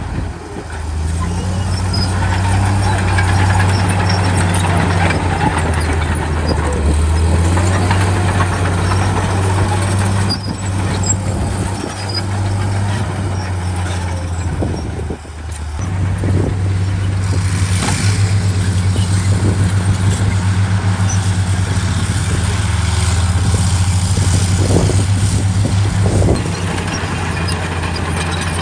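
Heavy diesel engines of earth-moving machinery running steadily under work. Near the middle the sound dips briefly, and in the second half there is an even, throbbing engine beat.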